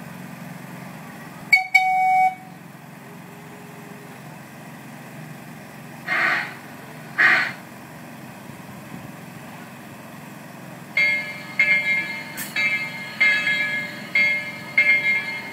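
Quarter-scale locomotive sounding its whistle: one short toot about a second and a half in, then two short hissy blasts. From about eleven seconds its bell rings over and over.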